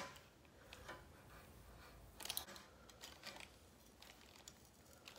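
Near silence: faint rustling and a few soft clicks as fingers rake through curled hair.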